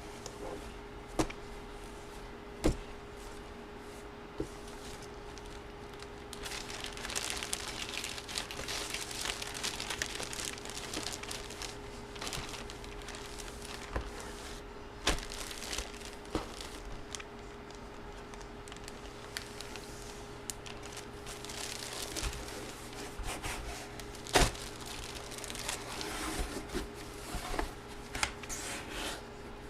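Plastic trading-card packaging crinkling and tearing as it is opened and handled, in two long stretches, with a few sharp clicks and taps in the first seconds. A faint steady hum runs underneath.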